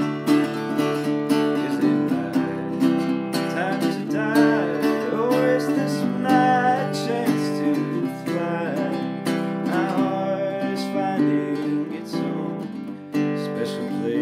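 Acoustic guitar being strummed in a steady rhythm, with a man's voice singing over it through the middle of the stretch.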